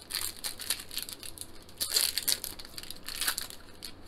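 Foil trading-card pack wrapper crinkling and tearing as it is pulled open by hand: a run of short crackles, loudest about halfway through.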